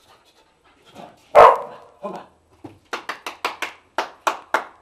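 A Staffordshire terrier barks once, loud and short, about a second and a half in. Near the middle a quick run of about a dozen short, sharp clicks follows, several a second.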